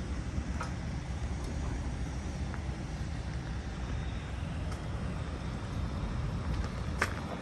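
Road traffic going by, a steady low rumble, with a few sharp clicks near the end.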